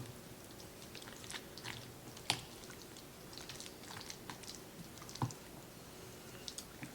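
A spoon stirring a thick, creamy casserole topping in a bowl: soft wet squelches and small clicks, with two sharper taps of the spoon against the bowl, one about two seconds in and one about five seconds in.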